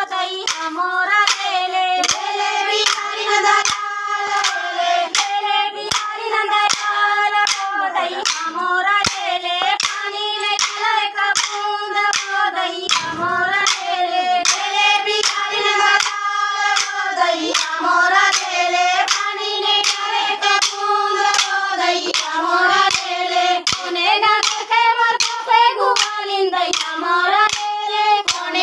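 Group of women singing a Chhattisgarhi Sua folk song in unison, kept in time by sharp claps about twice a second.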